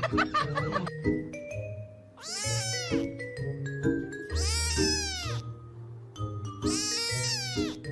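A cat gives three long meows, each rising then falling in pitch, about two seconds apart, over light background music with mallet-like notes.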